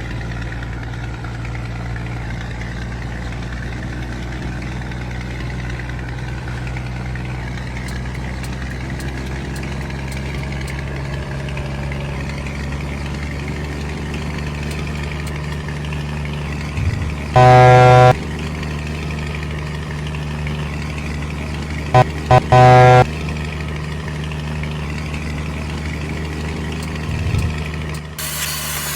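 Scania truck engine running with a steady low rumble. The air horn sounds twice over it: one blast about two-thirds of the way in, then two short toots and a longer blast a few seconds later.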